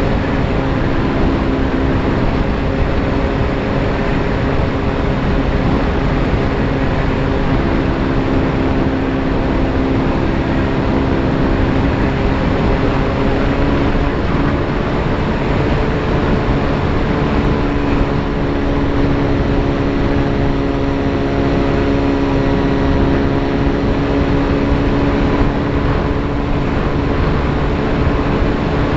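Electric motor and propeller of a VAS Chimera FPV plane, recorded onboard in flight: a steady multi-tone motor hum that shifts slightly in pitch about halfway through, over constant wind rush.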